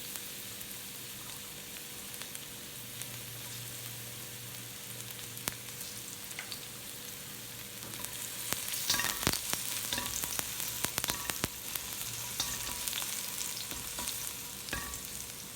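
Garlic sizzling in hot cooking oil in a pan, with a utensil knocking and scraping against the pan as it is stirred, the clicks growing more frequent and louder from about halfway in.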